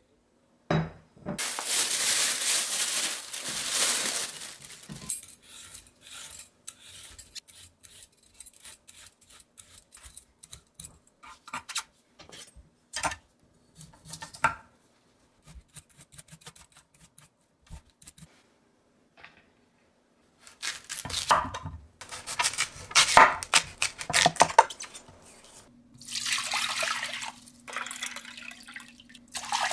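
Kitchen prep sounds: about a second and a half in, a few seconds of rushing noise, then scattered knife clicks and knocks on a wooden cutting board as a Korean radish is trimmed, with clattering of bowls and utensils. Near the end, water is poured from a glass bowl into a pot.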